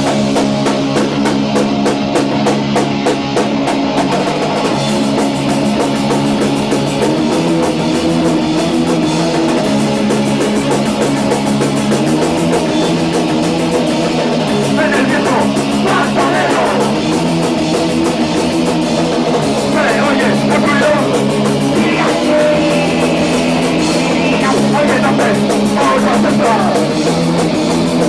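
Punk rock band playing live: electric guitar and bass chords changing every few seconds over a drum kit with cymbals, loud and unbroken.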